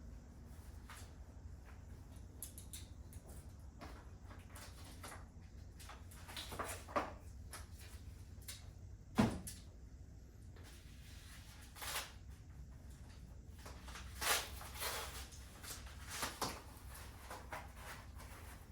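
Scattered knocks, clicks and short rustles from handling a new bike and its packaging, over a low steady hum. The loudest single knock comes about halfway through.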